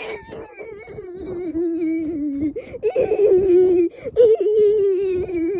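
A child's voice giving a long, wavering, exaggerated wail, broken briefly twice.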